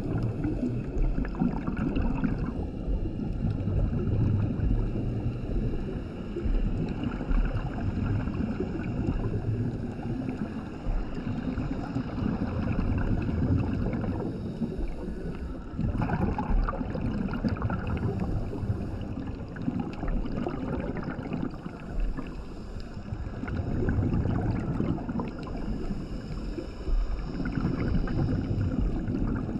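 A scuba diver's regulator breathing underwater: hissing breaths and gurgling, rumbling bursts of exhaled bubbles, going on with small rises and falls.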